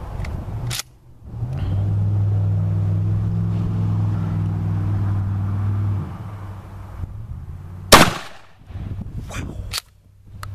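A single 12-gauge buckshot blast from an IAC Hawk 981R pump-action shotgun, a Remington 870 clone, about eight seconds in, followed a second or so later by the clacks of the slide being pumped to eject the spent hull. Earlier, a steady low hum runs for a few seconds.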